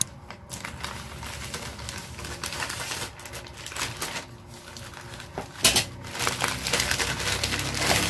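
Plastic courier mailer bag crinkling and rustling as it is cut open with scissors and handled, with many small crackles and snips. There is one sharper, louder crackle a little past the middle.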